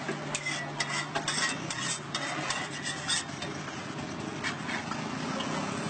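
Metal spatula scraping and clicking across a flat iron griddle, a quick run of rasping strokes over the first three seconds, with a steady low hum beneath.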